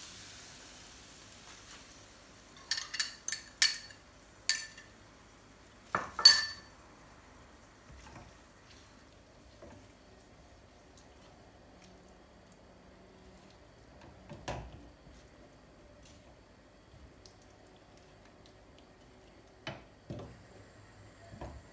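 Metal utensils clinking against a pan and dishes: a quick run of sharp, ringing clinks about three seconds in, the loudest pair about six seconds in, then only a few light knocks. A faint frying hiss fades out at the start.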